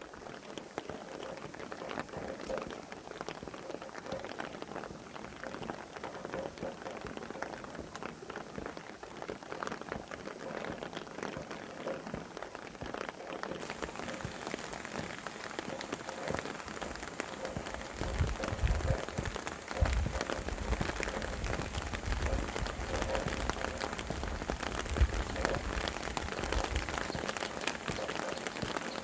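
Steady rain falling, with many individual drops pattering on nearby surfaces. About two-thirds of the way through, low gusts of wind rumble in and out.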